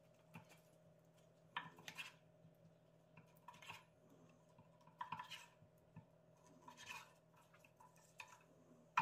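Chef's knife cutting sticks of garae-tteok (chewy Korean rice cake) into rounds on a wooden cutting board. Each cut makes a faint knock or scrape, at an irregular pace of about one every second.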